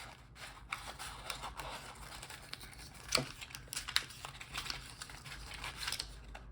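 Packaging being handled and opened to free a new padlock: crinkling and rustling with scattered sharp clicks and snaps, the loudest about three and four seconds in.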